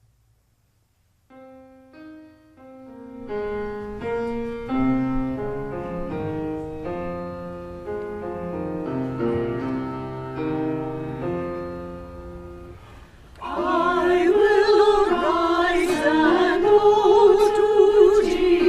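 Piano playing a slow introduction in chords, then a church choir comes in singing about two-thirds of the way through.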